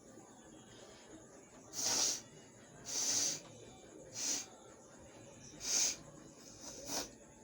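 A person forcing sharp bursts of breath out through the nose, five short hissing blasts about a second apart, the last one shorter and fainter.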